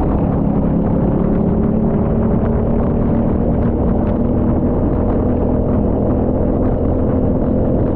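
Rental kart engine running under steady throttle, a continuous loud drone whose pitch holds nearly level throughout.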